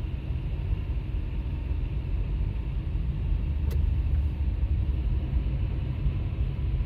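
Steady low rumble of a car driving, engine and road noise heard from inside the cabin, with one brief click about three and a half seconds in.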